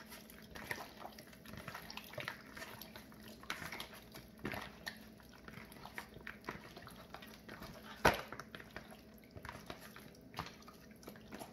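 Hands kneading sauce-coated chicken wings in a plastic bowl: soft, irregular wet squelches and smacks, with one sharper smack about eight seconds in.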